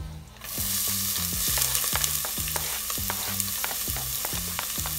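Chopped onion dropping into hot pork lard in a pot and sizzling, the sizzle starting about half a second in, as it is scraped off a cutting board with a wooden spatula.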